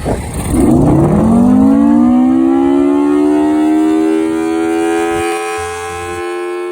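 1954 Federal Enterprises Thunderbolt 1000AT civil defense siren winding up: a loud chord of tones rises over about two seconds and then holds steady. A low rumble runs underneath and stops about five seconds in.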